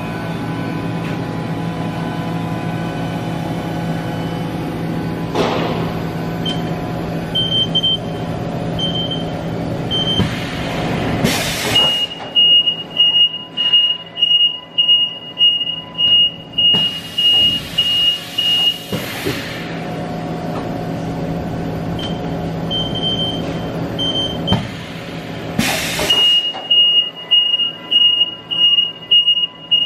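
Haas EC-500 horizontal machining center going through a pallet change. A steady machine hum is broken by loud bursts of air hiss, and a high warning beep pulses about twice a second while the pallet changer moves.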